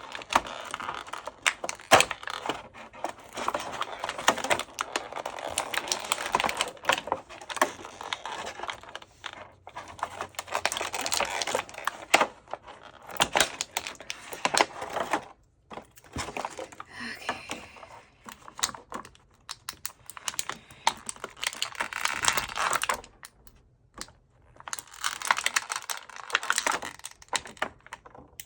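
Toy packaging being worked open by hand: crinkling and crackling with many small clicks, in long bursts separated by short pauses.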